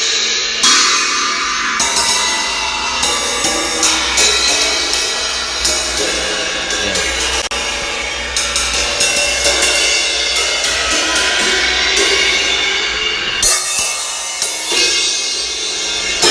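Cymbals struck over and over, their bright ringing washes overlapping with a fresh hit every second or so.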